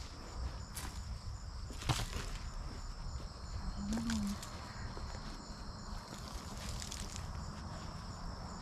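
Crickets chirping steadily in a high, even, pulsing trill, with a few short knocks and rustles from hands digging in dry potting soil.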